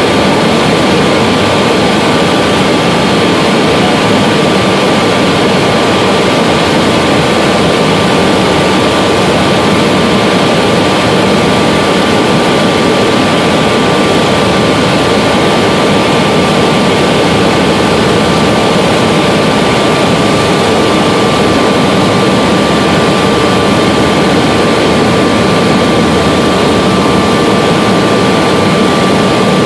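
Helicopter in steady flight heard from inside the cabin: a loud, even engine and rotor noise with a constant thin whine running through it.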